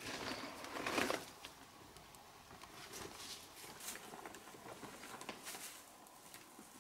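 Footsteps and rustling of leaves and grass as a person walks down a brushy bank. A louder brushing through the vegetation comes in the first second, then scattered footfalls and light rustles.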